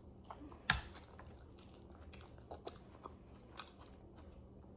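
Close-up eating sounds: soft chewing with scattered small clicks, one sharper click about a second in.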